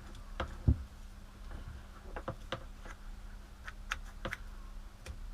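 Hard plastic rotary-tool attachment parts being handled and fitted together by hand: scattered light clicks and taps, with one louder knock under a second in.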